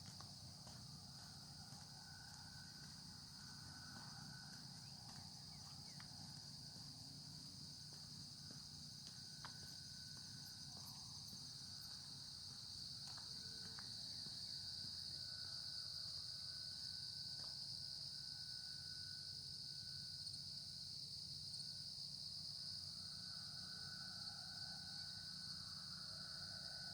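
Insects chirring in a steady, high-pitched chorus that grows a little louder about halfway through.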